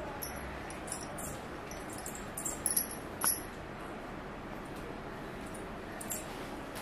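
Steady background noise with a few small, sharp clicks and clinks, the loudest cluster about two and a half to three and a half seconds in.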